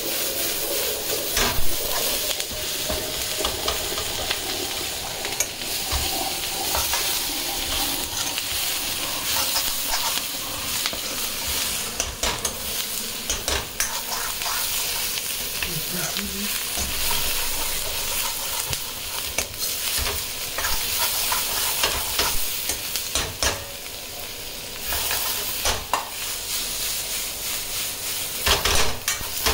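Onion and capsicum sizzling as they are stir-fried in a wok, with a metal spatula repeatedly scraping and clicking against the pan as the vegetables are tossed.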